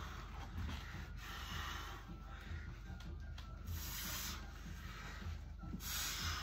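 Rubbing and rustling of a wrapped horseshoe and clothing as a man strains to bend the shoe by hand. Two louder hissing bursts come about four seconds in and near the end.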